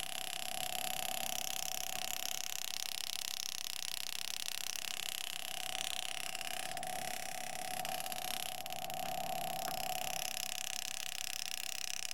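Power engraving handpiece running as it cuts lines into a nickel: a steady hum over a constant hiss, the hum swelling and fading and cutting out about ten seconds in.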